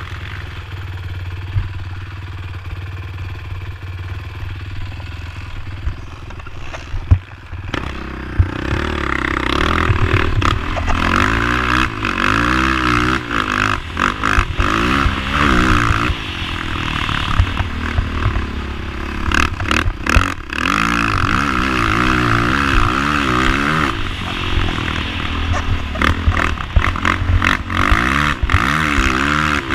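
Honda TRX450ER quad's single-cylinder four-stroke engine being ridden hard, revving up and down over and over, with clattering knocks. It is quieter and steadier for the first several seconds, then louder from about eight seconds in.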